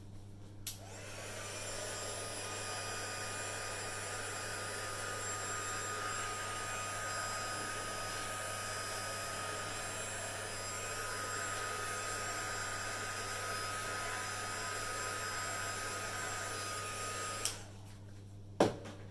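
Craft heat gun switched on about a second in, blowing steadily with a thin motor whine over the rushing air, then switched off near the end; it is drying freshly applied ink on a card panel.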